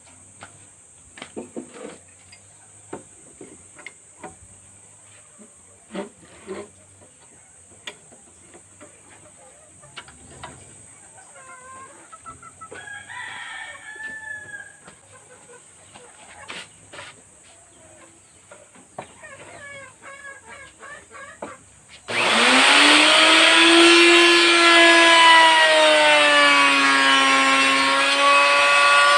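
Scattered clicks and knocks of a wood router being handled, with a rooster crowing and hens clucking faintly in between. About 22 seconds in, the router's motor starts with a rising whine and runs loudly and steadily.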